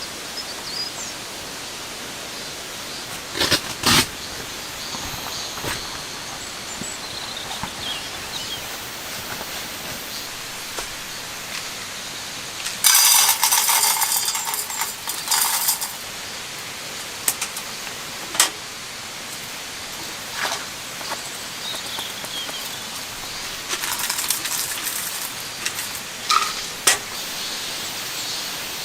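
Steady rain hiss, with a few sharp taps and two louder spells of crackling patter, one about halfway through and one near the end.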